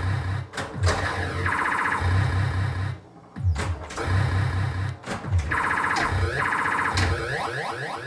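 1979 Williams Gorgar pinball machine in play: its synthesized electronic sound effects, a pulsing low buzz with a warbling tone, repeat about every two seconds, broken by sharp clicks and knocks from the flippers, solenoids and ball.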